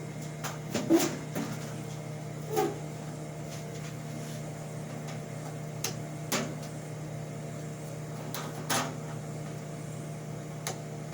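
Steady hum of an old Mitchell dehumidifier's fan motor running, with a few knocks and clatters from the case being handled and fitted over it, about one, two and a half, six and a half and nine seconds in.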